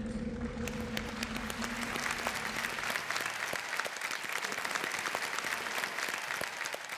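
Studio audience applauding, a dense patter of many hands that swells after the first second and eases near the end. A low held musical note from the end of the song fades out under it in the first two seconds or so.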